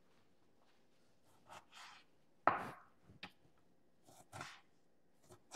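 Chef's knife cutting raw beef into cubes on a plastic cutting board: a few short, separate cuts and taps of the blade on the board, starting after about a second and a half, the sharpest one about halfway through.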